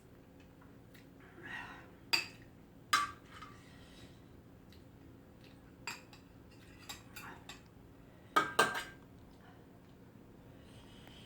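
Eating utensils clinking and tapping against bowls and dishes during a meal of crab soup, about seven separate sharp clinks with short pauses between, the loudest a quick pair near the end.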